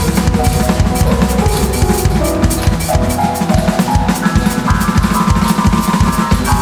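Roland TD-17 electronic drum kit playing a fast, busy pattern of kick and snare hits, with keyboard and synth notes stepping up and down over it and climbing higher about four seconds in.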